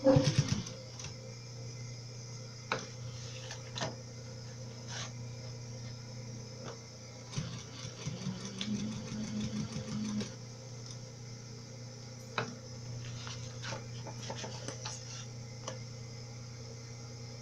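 Electric sewing machine stitching a fabric strap onto a clear plastic pouch. It runs in short bursts, the longest lasting a few seconds about midway. Clicks and handling noise fall between the bursts.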